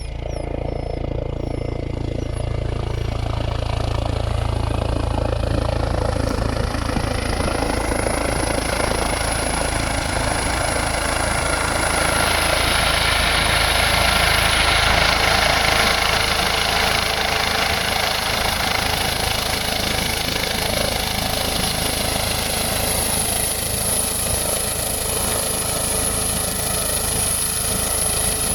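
Helicopter running steadily, a dense engine-and-rotor noise with a steady high whine, swelling a little in the middle.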